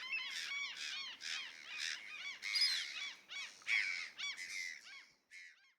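A dense chorus of many overlapping short, high, arching animal calls, several a second, which starts abruptly and breaks off near the end.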